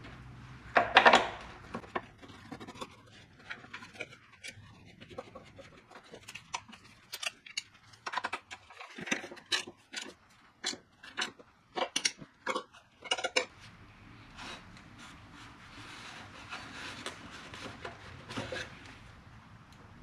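Metal tools and motorcycle parts clinking, knocking and scraping during hand work on a front fork: a loud clatter about a second in, then a run of irregular sharp clicks and knocks, then quieter scuffing near the end.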